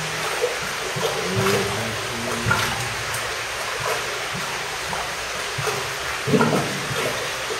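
Water sloshing and trickling in a flooded cave passage, stirred by a caver crouched in it, with a few short splashes; the loudest comes about six seconds in.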